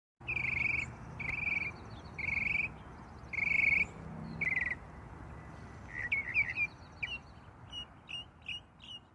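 Birds calling: five trilled phrases of about half a second each, then a run of quick, short chirps in the last few seconds, over a steady background hiss. The sound cuts in abruptly from silence.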